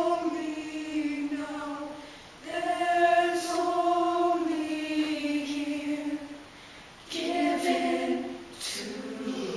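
High school show choir of boys and girls singing a slow ballad in long held chords. The phrases are broken by short pauses about two seconds in, again past six seconds, and once more near the end.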